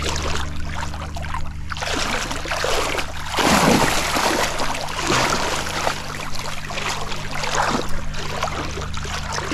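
Legs wading through shallow lake water, splashing and sloshing with each step, loudest about three and a half seconds in.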